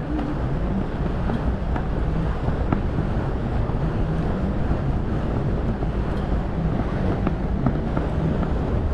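Ferry under way: its engine running steadily as a low drone, with water washing past the hull and wind buffeting the microphone.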